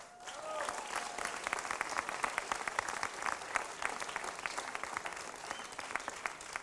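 Audience applauding: dense clapping that swells in over the first second and then carries on steadily, with a faint call or two from the crowd near the start.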